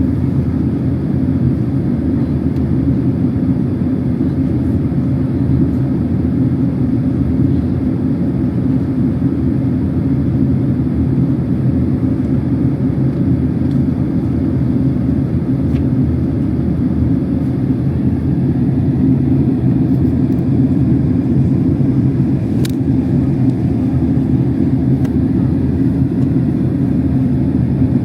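Steady cabin rumble inside a Boeing 767-300 airliner: engine and airflow noise, deep and even throughout, with a faint click about three-quarters of the way through.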